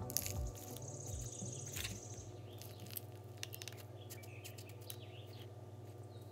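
Faint rustling and light clicks of dry fibrous substrate being spooned into a thin plastic cup with a plastic spoon, over a low steady hum. A high, rapid chirping trill runs through the first two seconds.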